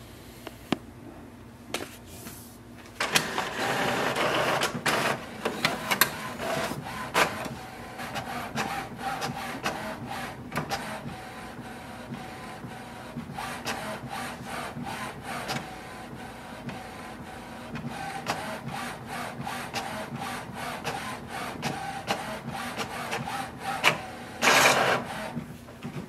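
HP OfficeJet Pro 9125e inkjet printer printing its printhead alignment page: the mechanism starts up about three seconds in and then runs steadily with rapid clicking, with a louder burst near the end as the page comes out.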